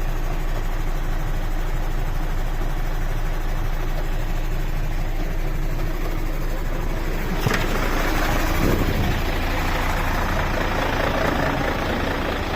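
Mercedes-Benz Actros truck's diesel engine idling steadily. There is a sharp click about seven and a half seconds in, after which the sound grows somewhat fuller and louder.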